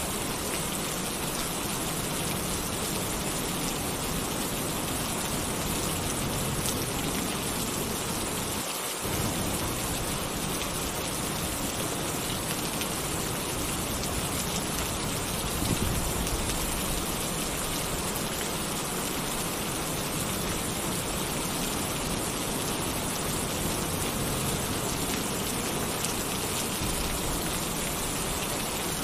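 Heavy rain pouring steadily on a tin roof, a dense even hiss, with a short low rumble of thunder about halfway through.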